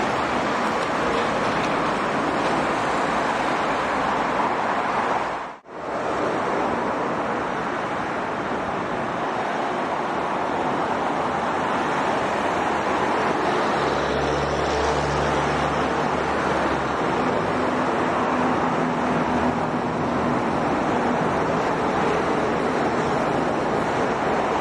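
Steady roar of dense highway traffic, trucks and cars passing at speed on a multi-lane toll road. The sound drops out for a moment about five and a half seconds in. A heavy truck's low engine hum stands out from about fourteen to seventeen seconds in.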